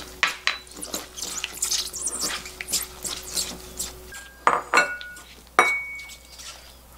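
A gloved hand tossing wet blanched greens in a glass bowl: soft squelching and rustling with small knocks against the glass. Then two sharp, ringing clinks about a second apart as the glass bowl meets the ceramic plate.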